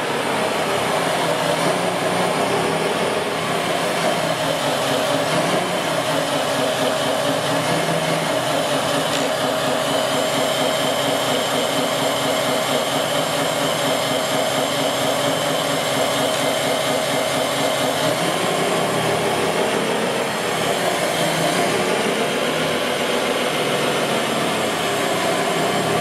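Radio-controlled model construction machines running: a steady mechanical whir of small motors and gearing, with a steady whine added for several seconds in the middle.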